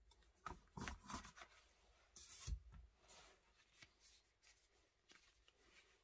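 Faint handling noise of leather wallets in the hands: short rustles and rubs of the vegetable-tanned leather, with a soft thump about two and a half seconds in as a wallet is put down.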